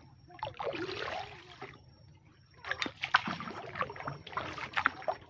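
Paddling a wooden dugout canoe: water swishing and splashing under the paddle, then after a short pause a run of light splashes and sharp knocks.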